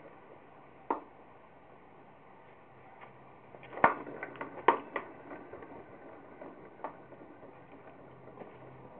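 Worn wheel bearings clicking and popping as the wheel is spun by hand: a single click about a second in, a cluster of sharp pops around four to five seconds in with two loud ones, then a few fainter clicks.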